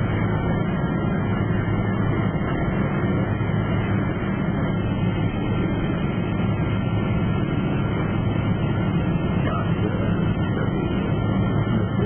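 Steady airliner cabin noise: the jet's engines and airflow running evenly, with a deep low hum under a broad rush.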